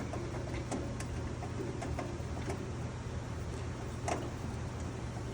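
Scattered light clicks and taps of bandsaw parts being handled and fitted back in place, over a steady low hum. The sharpest click comes about four seconds in.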